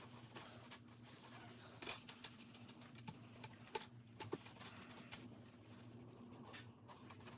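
Near silence: a few faint light clicks and rubbing from the plastic laptop bezel being wiped down, over a low steady hum.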